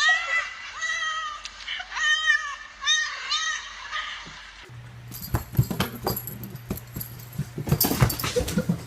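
A pet animal gives a series of short, high calls that rise and fall in pitch, about six of them in the first four seconds. From about five seconds in, the sound changes suddenly to a low hum with a clatter of clicks and knocks.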